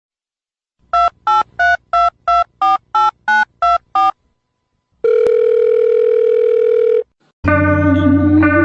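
Telephone keypad tones: ten quick dual-tone beeps, like a number being dialled, then a steady phone tone lasting about two seconds. Music starts near the end.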